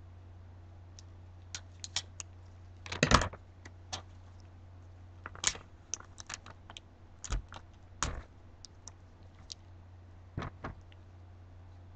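Scattered light clicks and knocks of small craft items being handled on a tabletop, irregular, with the loudest cluster about three seconds in, over a steady low hum.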